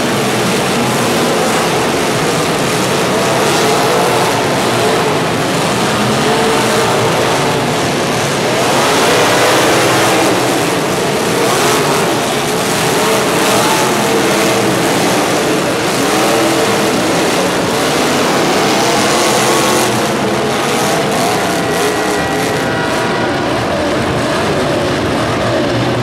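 Engines running and revving, their pitch rising and falling, over a loud, steady rushing noise.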